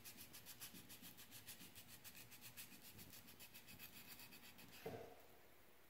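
Faint rubbing by hand on a wooden knife with a wire-wrapped handle: quick, even strokes about five a second. A single light knock comes near the end, and the rubbing stops.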